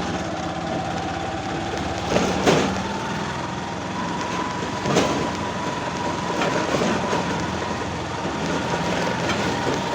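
A running motor vehicle with a steady whine and constant rumble, with several sharp knocks and rattles, the loudest about two and a half seconds and five seconds in.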